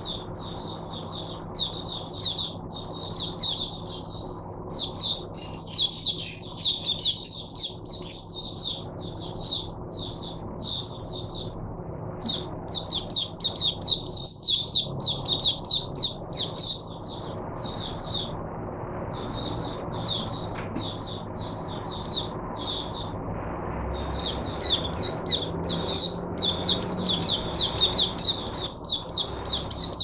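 Caged white-eye (mata puteh) singing: long runs of fast, high chirping notes in phrases, broken by a few short pauses.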